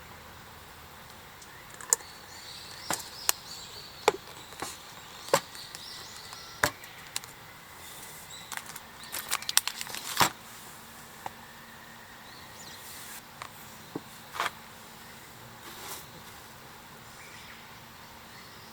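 Irregular light knocks and clicks of objects being handled, with a quick run of clicks about nine to ten seconds in.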